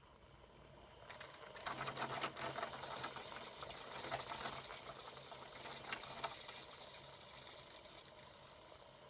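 Bosch Tassimo pod machine brewing. Its pump hums steadily while hot water is forced through the hot chocolate disc and spits and gurgles into the cup. The sound starts about a second in, is strongest for several seconds and then eases off.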